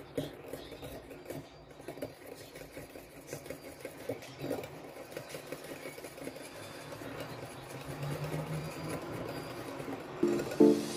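Wire whisk beating cream and condensed milk in a bowl: a quick, even scraping and tapping of about three or four strokes a second. Music comes in near the end.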